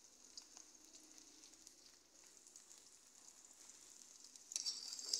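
Onions, garlic and peppers sizzling faintly in hot oil in a wok, with small crackles; the sizzle gets sharply louder about four and a half seconds in.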